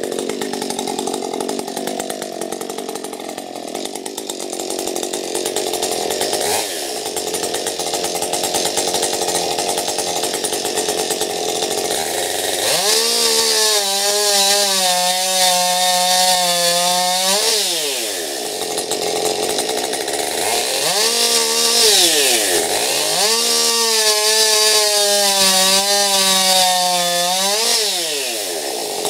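Husqvarna two-stroke chainsaw idling, then revved to full throttle twice: once for about four seconds, then again for about seven seconds with a brief dip. Each time the pitch climbs sharply, holds high and steady, and drops back to idle.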